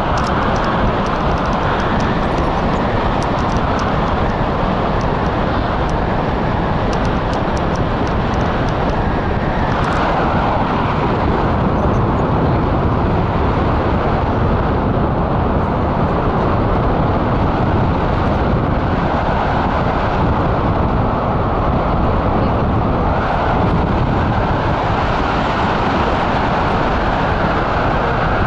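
Steady wind rushing over the camera's microphone on a tandem paraglider in flight, a loud, even roar with no engine tone.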